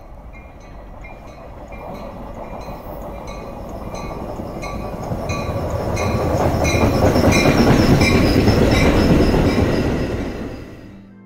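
Metra bilevel commuter train pulling into the station, its rumble and the noise of its wheels on the rails growing louder as the cars roll past, while a bell dings steadily throughout. The sound drops away near the end.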